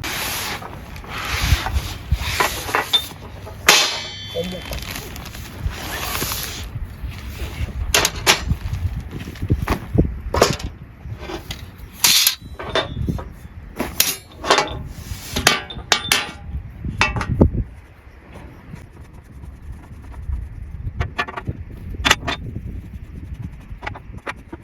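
Irregular knocks, clacks and rustling, thickest in the first two-thirds and sparser near the end, over a low rumble of wind on the microphone.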